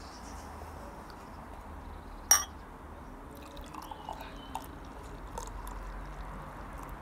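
A single sharp glass clink about two seconds in, then homebrewed beer poured from a brown glass bottle into a stemmed glass: a faint, uneven gurgling stream.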